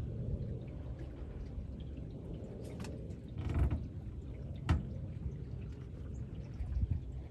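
River water lapping and gurgling against the hull of an anchored boat, with a few louder slaps and a sharp knock near the middle.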